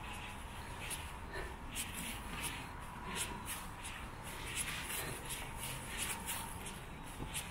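Footsteps crunching and rustling on dry fallen leaves and dirt along a forest trail, an uneven walking pace of about two steps a second.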